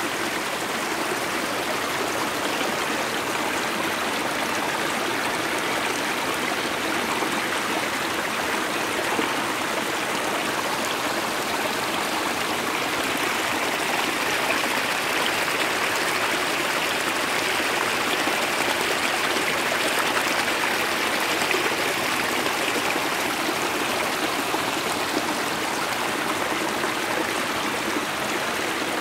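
Mountain stream rushing and splashing in small cascades over rocks: a steady rush of water, a little louder and brighter about halfway through.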